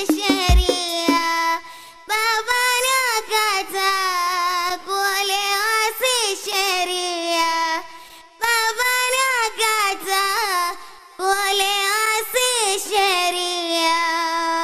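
Qaswida singing: a high voice sings long, ornamented wordless phrases over a steady held drone, with a couple of hand-drum strikes at the very start. The phrases break off briefly about two, eight and eleven seconds in.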